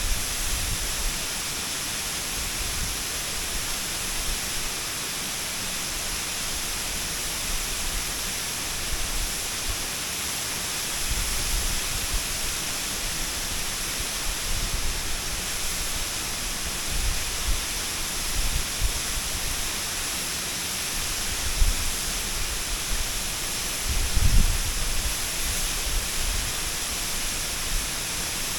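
Waterfall: a steady, dense rush of falling water. Short low rumbles come now and then, the strongest a few seconds before the end.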